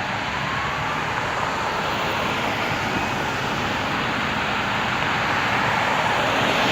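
Steady road-traffic noise, with the faint wail of a siren rising and fading in the first second.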